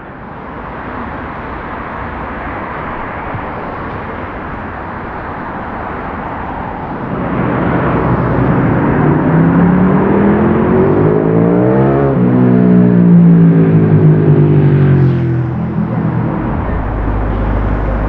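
Road traffic: a steady hiss of passing cars. About seven seconds in, a motor vehicle approaches and passes close, its engine note rising and then falling in pitch, loudest about two-thirds of the way through. A low steady rumble follows near the end.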